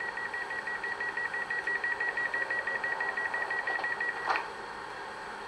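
Sound decoder of a Brawa H0 model of the DB Twindexx Vario double-deck train playing a rapid, even run of electronic beeps, about six a second, the door-closing warning tone, then a short clunk as the door sound ends about four seconds in.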